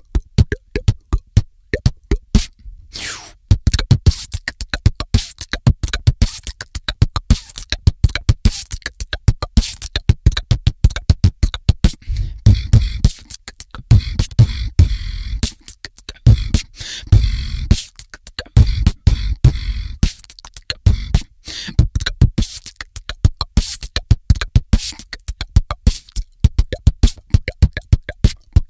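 A boy beatboxing: a fast, rhythmic vocal-percussion pattern of drum-like clicks and hits made with the mouth and throat, picked up close on a studio microphone. A short pause comes about three seconds in, and through the middle a deep bass sound runs under the beat.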